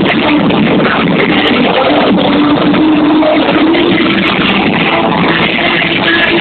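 Live rock band playing loud: electric guitar over drums, with held notes sounding through a dense, unbroken wall of sound.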